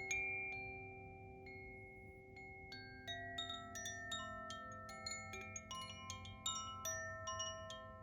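Koshi Terra chime ringing, its rods striking in irregular clusters with overlapping tones left to ring on. The strikes thin out about a second in and pick up again from about three seconds in.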